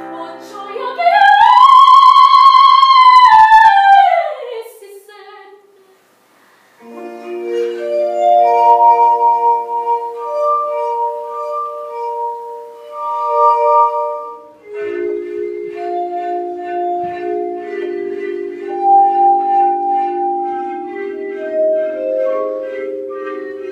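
A soprano holds a high sung note that swells up, sustains and falls away, ending about five seconds in. After a short gap, glass instruments play slow chords of pure, steady held notes that shift every few seconds.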